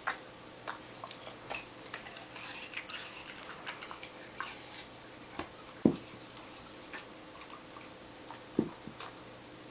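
A pet eating: irregular small clicks and crunches of chewing, with two louder knocks about six and eight and a half seconds in.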